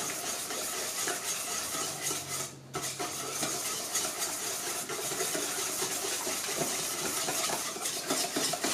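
Wire whisk beating a wet batter of eggs, yogurt and mashed banana in a stainless steel bowl: fast, continuous scraping and rattling of the wires against the metal, with a brief pause about two and a half seconds in.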